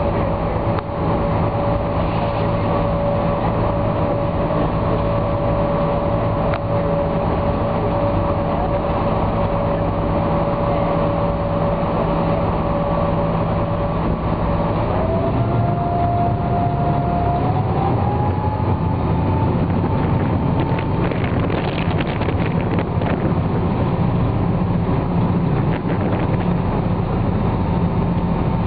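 A harbour ferry's engine running under way, a steady drone with a whining tone that rises in pitch in two steps about halfway through as the engine picks up.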